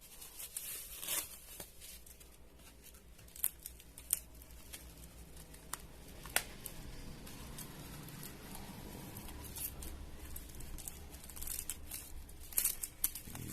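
A product box and its packaging being opened and handled by hand: tearing and crinkling with scattered sharp clicks and taps.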